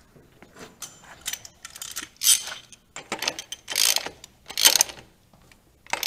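Socket ratchet clicking in several short runs, about one a second, as the rear axle nut is tightened.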